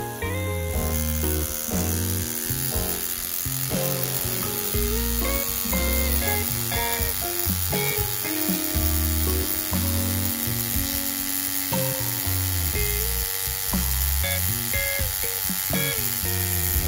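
Background music with stepping melody notes over a repeating bass line.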